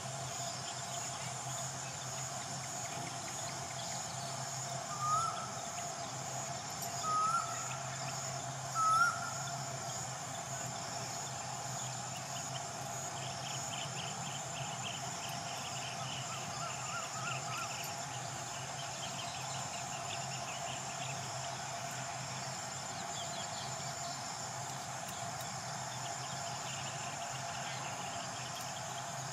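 Outdoor insect ambience: a steady background buzz of insects. A bird gives three short rising chirps about two seconds apart, starting about five seconds in.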